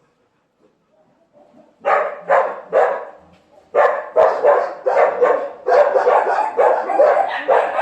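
Dog barking: after a quiet start, three barks about two seconds in, then from about four seconds in a rapid, unbroken run of barks, about three a second.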